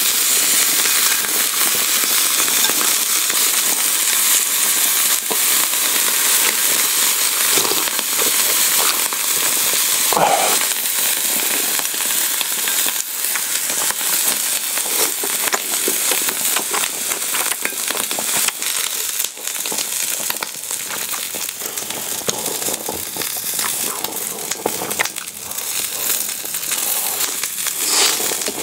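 Slices of beef tongue sizzling on a hot griddle: a steady, dense, high-pitched crackle with frequent sharp pops.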